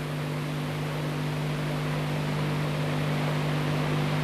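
Steady hiss with a constant low electrical hum: the background noise of an old dubbed film soundtrack.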